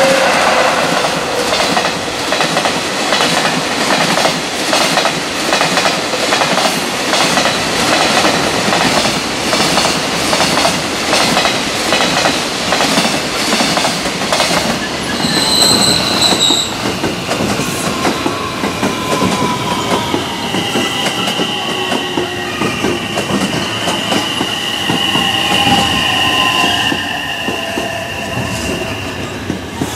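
Long freight train passing at speed, its wagon wheels clattering rhythmically over the rail joints. About halfway a short high squeal sounds, and through the second half the clatter eases under drawn-out metallic wheel squeal.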